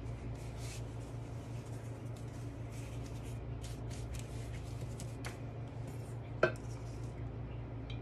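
Soft rustling of phyllo pastry sheets being laid and smoothed by hand over a steady low hum, with one sharp, ringing clink about six and a half seconds in.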